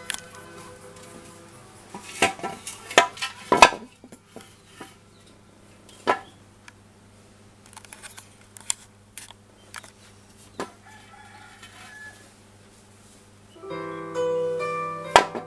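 Coins clinking and rattling inside a glazed ceramic piggy bank as it is tipped and turned over: a quick cluster of clinks a couple of seconds in, then single clinks every second or so. Background music plays underneath and grows louder near the end.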